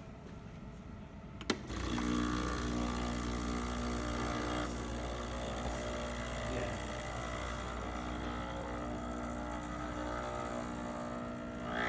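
Breville Barista espresso machine starting a test shot: a sharp click about a second and a half in, then its pump starts and runs with a steady hum. The machine is working normally again after a leaking, buzzing solenoid valve was replaced.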